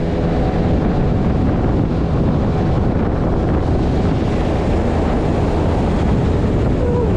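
Outboard motor of a small aluminium tinny running steadily under way, with wind buffeting the microphone and water rushing past the hull.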